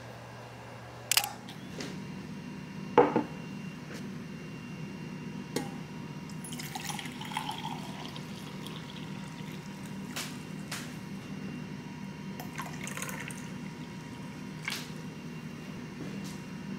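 Water poured from a small steel saucepan into a ceramic mug, splashing as it fills, over a steady low hum. Two sharp knocks come about one and three seconds in, the second the loudest sound.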